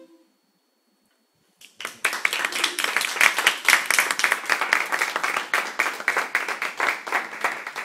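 A recorder ensemble's last chord cuts off at the very start; after a pause of nearly two seconds a small group breaks into applause, dense hand clapping that carries on to the end.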